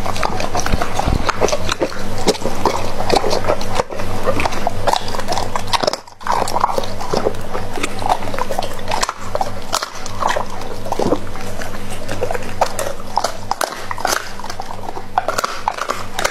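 A Doberman pinscher eating raw meat off a plate: close, wet chewing and lapping with many short clicks of teeth and jaws, and a brief pause about six seconds in.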